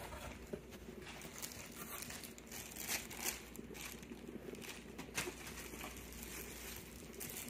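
Plastic packaging bags crinkling and rustling as they are handled, with scattered faint crackles and a slightly louder rustle about three seconds in.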